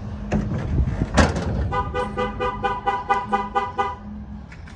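A few knocks, then a vehicle's electronic warning chime beeping rapidly, about five beeps a second, for a couple of seconds before it stops.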